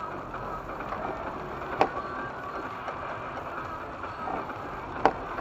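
Steady hiss inside a car as it moves off slowly on a rain-soaked road. Two sharp clicks come about three seconds apart.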